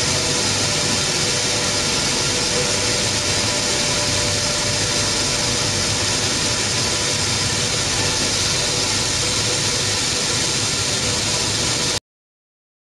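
Steady roar of a maize milling plant running: roller mills and the rest of the milling machinery going at once, with a few faint steady hums in it. It cuts off suddenly near the end.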